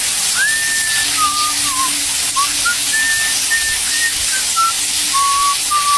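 Whistled notes over a steady loud hiss: a string of short held tones, some sliding up or down into the next, like a slow tune being whistled.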